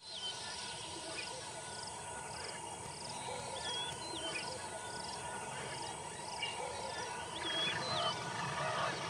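Natural wildlife ambience: an insect trills in short, regular pulses, about two a second, while birds give short hooked whistles now and then. From about seven seconds in, a chorus of wavering bird calls grows louder.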